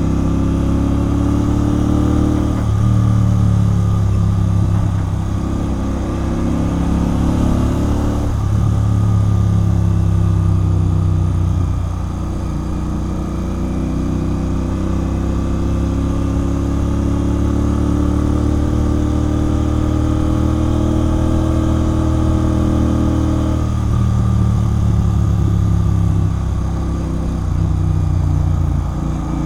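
Royal Enfield Continental GT 650's parallel-twin engine through a Red Rooster aftermarket exhaust, heard while riding. The engine note rises and falls with the throttle, with three sudden shifts in pitch that fit gear changes.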